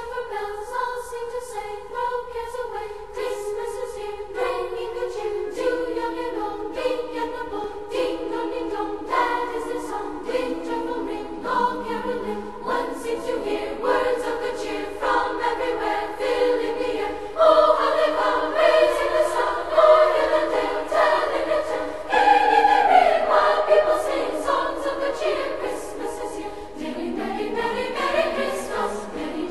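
A choir singing a piece of music, with sustained voices moving from note to note.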